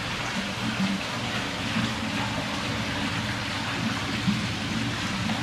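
Steady rush of water splashing and pouring into a koi pond.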